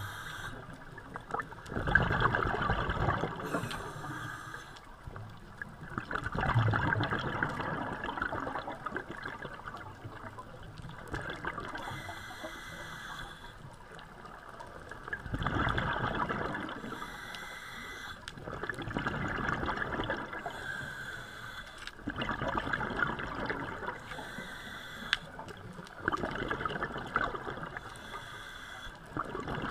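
Scuba diver breathing through a regulator underwater, every few seconds: a short hiss on each inhale, then a burst of bubbling gurgle on each exhale.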